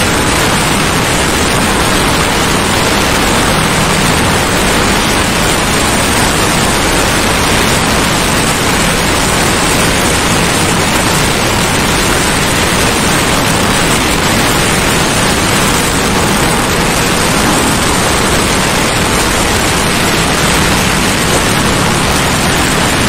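Loud, steady rush of wind over the microphone of a motorcycle moving at highway speed, with a faint low engine hum underneath.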